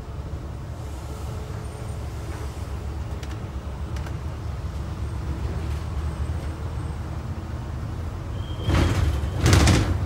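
Steady low rumble of a double-decker bus driving along, heard from the upper deck, with two short loud hissing bursts about half a second apart near the end.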